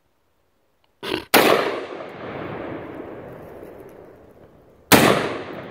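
Two shots from an AR-15 pistol firing 5.56 rounds, about three and a half seconds apart, each very loud and followed by a long rolling echo that dies away.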